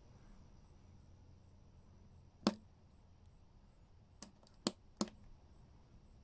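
Sharp plastic clicks of the manual override push button on an IntelliPower remote pendant being pressed to cycle the RV converter's charging modes: one click about two and a half seconds in, then three more in quick succession about two seconds later.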